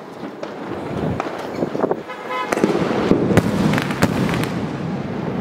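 Double ball aerial firework: a shell climbing with a hissing trail of sparks, then bursting with several loud bangs among crackling noise. A sharp bang comes at the very end.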